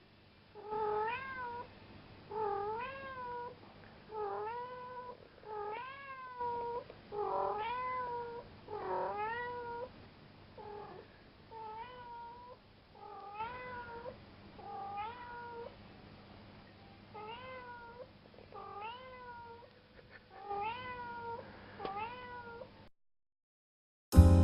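Domestic cat meowing over and over, about fifteen separate meows, each rising and then falling in pitch, stopping shortly before the end.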